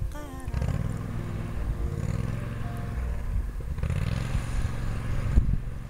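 Motorboat engine running steadily with a low drone, and a hiss that swells briefly about four seconds in.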